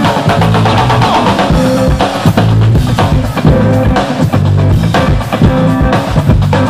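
Loud music with a driving drum-kit beat of kick and snare over a bass line, played for dancing.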